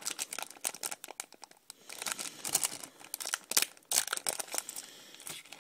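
Foil wrapper of a trading-card pack crinkling and tearing as it is handled and pulled open, in irregular bursts of crackles.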